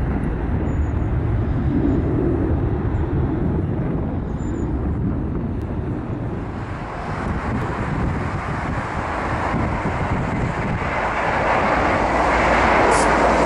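Airbus A321 jet engines rumbling steadily as the airliner climbs away after takeoff. About seven seconds in, the sound gives way to the jet on landing approach, growing louder and hissier near the end as it flies low over the runway before touchdown.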